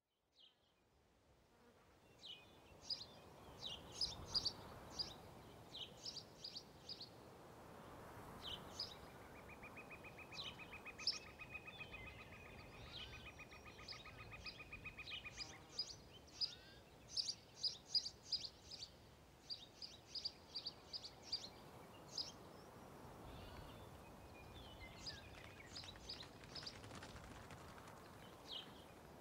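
Countryside ambience: many short high bird chirps over a soft steady hiss, fading in over the first couple of seconds, with a rapid even buzzing trill held for about six seconds in the middle.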